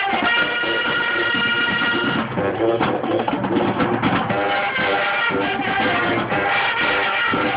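Marching band playing, with brass and drums. The horns hold a chord for the first couple of seconds, a stretch led by the drums follows, and then the horns come back in with moving notes.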